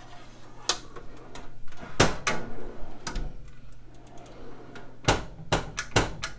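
Steel drawer of a U.S. General five-drawer tool cart sliding in and out on its metal slides, with several sharp clicks and knocks, the loudest about two seconds in. The click is the sign that the drawer has latched into its slide channels.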